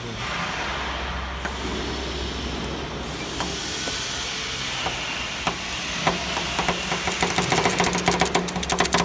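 Steel spatulas chopping on the frozen steel pan of a fried ice cream roll machine: scattered taps at first, turning into a fast, louder clatter near the end, over the steady hum of the machine's cooling unit.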